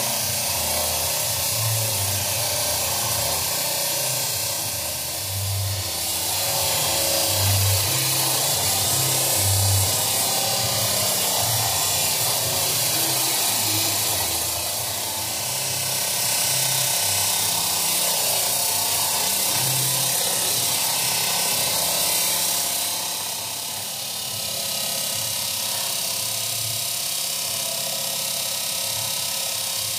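Homemade disc sander, driven by an old electric fan motor, running while a wooden block is pushed against its abrasive disc: a steady hiss of sandpaper on wood that swells and eases several times with the passes. Background music plays alongside.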